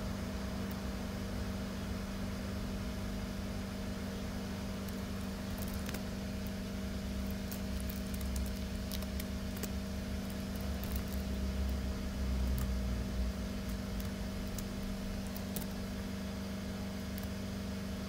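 Steady low electrical hum with a low rumble under it, and faint scattered clicks of a computer mouse.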